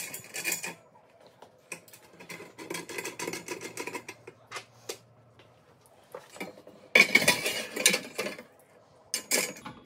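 Stainless steel rotisserie parts clinking and tapping as a wing nut is turned and a bracket fitted onto an upright stand post. About seven seconds in comes a louder metal clatter lasting about a second and a half.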